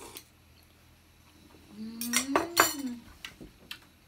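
Cutlery and dishes clinking at the table: a few sharp clinks close together about halfway through, the loudest two about half a second apart, with a brief low hum that rises and falls under them.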